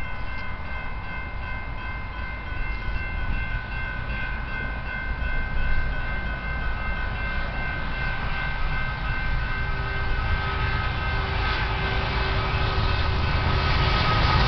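Approaching diesel-hauled double-stack freight train: a low rumble that grows louder toward the end, under a steady chord of several high ringing tones that fades about three-quarters of the way through.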